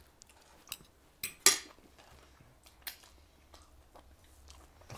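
Metal fork clicking against a plate a few times, the loudest about one and a half seconds in.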